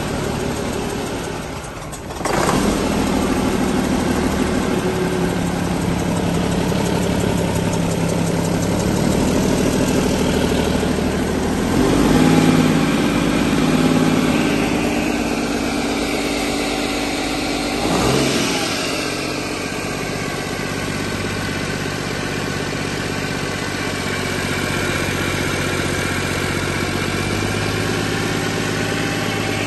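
2007 Mack AMI-370 E-Tech inline-six turbo diesel, out of the truck, running on a test stand. It picks up sharply about two seconds in, revs up around twelve seconds and again briefly near eighteen seconds, and otherwise runs steadily at idle.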